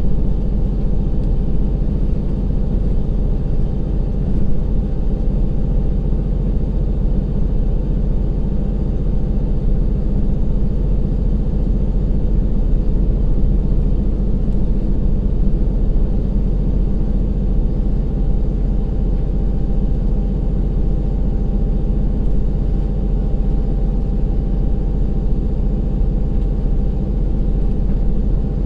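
Direct-injection 12-cylinder DML30HSJ diesel engine of a KiHa 182-500 railcar working steadily under power, heard inside the passenger cabin. The hydraulic transmission is in torque-converter drive as the train climbs a steep grade at about 60 km/h.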